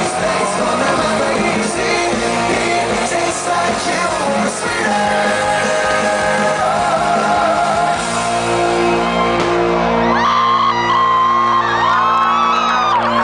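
Loud pop-rock music with singing and some shouts. About eight seconds in the music changes to held chords with gliding high tones over them.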